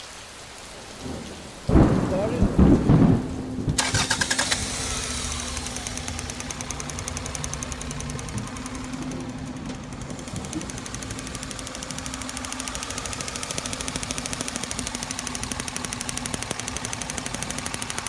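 Loud rumble and knocks about two seconds in, then a Toyota engine idling with a fast, even ticking: the snap of a spark tester on an ignition coil wire, used to check whether a weak coil is causing a misfire.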